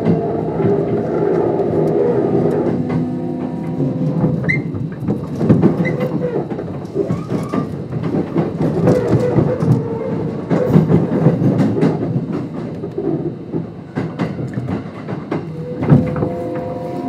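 Kintetsu 5200 series electric train running under its Mitsubishi GTO-VVVF traction inverter, with a steady rumble of wheels on the rails and many short clicks. The inverter whine is heard as tones rising in pitch at the start and again near the end.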